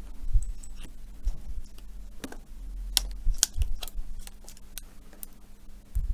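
Irregular sharp clicks and light taps of small parts and a tool being handled while a WLAN card is fitted into an open laptop, about eight distinct clicks spread over several seconds.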